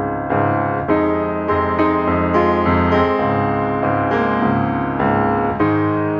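Background music: a melody of struck notes, a new note about every half second, over sustained lower tones.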